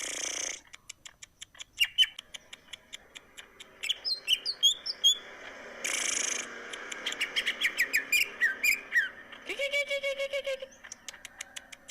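Green leafbird (cucak ijo) singing a varied, busy song: fast runs of ticking clicks, quick chirps and falling whistled notes. Harsh rasping bursts come at the very start and about halfway through, and a held lower note comes near the end.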